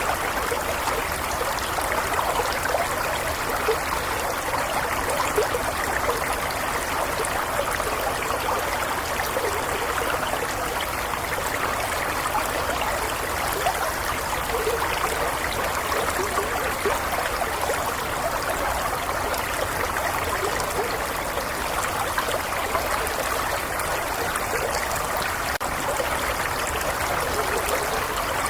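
A gentle stream flowing steadily, water trickling and babbling over stones in an even, unbroken rush.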